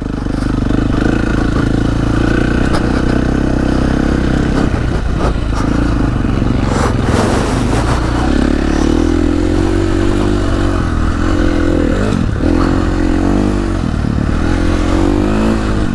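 KTM 350 SX-F dirt bike's single-cylinder four-stroke engine running under riding load, its pitch rising and falling with the throttle, over wind noise, with a few short knocks.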